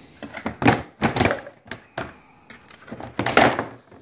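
Plastic cover panel over an ATV's battery compartment being worked loose and pulled off by hand: a string of clicks, knocks and plastic scrapes, loudest about a second in and again near the end.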